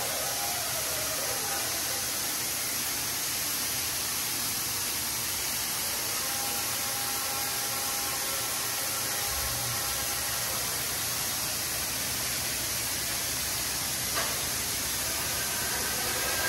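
WashBot Transformer 3XM in-bay automatic car wash spraying water over a car: a steady hiss of spray, with faint whining tones coming and going.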